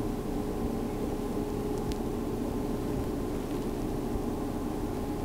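A steady, low droning noise with a constant hum-like tone running through it, unchanging, with no distinct sounds standing out.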